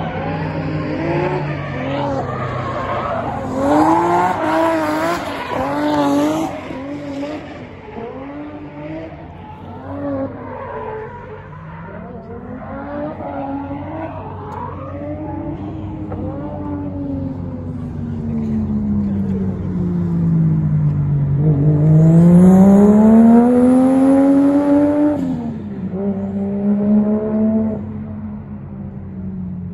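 Cars drifting at high speed: engines revving hard, their pitch bouncing up and down as the throttle is worked, with tyres squealing about 3 to 6 seconds in and again about 22 to 25 seconds in. In the later pass one engine note dips and then climbs steeply before cutting back.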